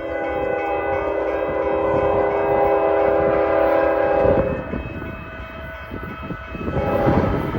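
Locomotive air horn sounding a long blast of several notes together, lasting about four seconds, then a second blast starting near the end, over the rumble of the passing train.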